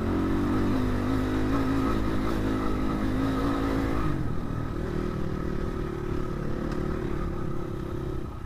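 Crossfire RM250 dirt bike's engine running under throttle on a loose dirt track. Its pitch steps down about four seconds in as the revs fall, then holds steady.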